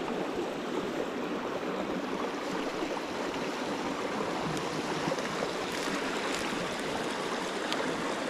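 Small mountain creek running over rocks and shallow riffles, a steady rush of water.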